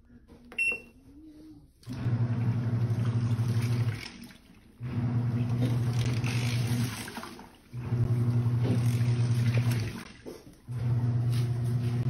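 Nictemaw portable top-loading washing machine agitating a load of clothes in water: the motor hums and the water sloshes in runs of about two seconds, with short pauses between runs as the wash plate stops and reverses. One short beep from the control panel sounds just before the first run.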